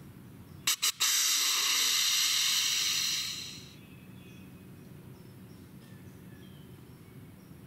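Two quick clicks, then a loud steady hiss that lasts about two and a half seconds and fades away.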